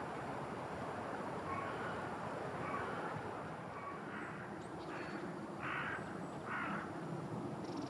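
A crow cawing three times in quick succession over a steady rushing background, with a few short, thin calls from smaller birds earlier on.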